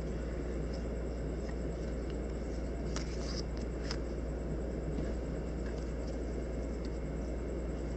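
Pokémon trading cards being handled and slid against each other in the hands, with a few soft scrapes about three and four seconds in. A steady low hum runs underneath.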